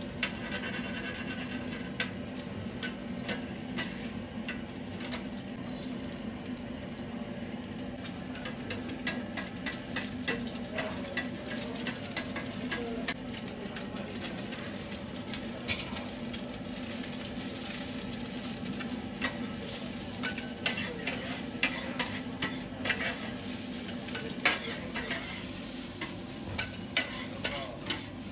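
Food sizzling on a flat steel griddle while metal spatulas scrape and clack against the plate as egg fried rice is stir-fried. The clacks come faster and louder in the last third.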